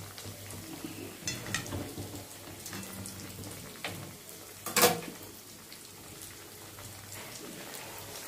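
Semolina-coated fish piece frying in hot oil in a kadai: a steady fine crackle of small pops. A sharp knock a little past halfway.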